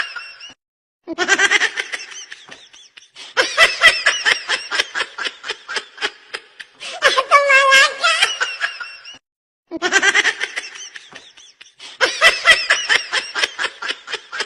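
A baby laughing in quick, high-pitched giggling pulses, in long runs broken by two short silences. The same laughing recording repeats about every eight and a half seconds.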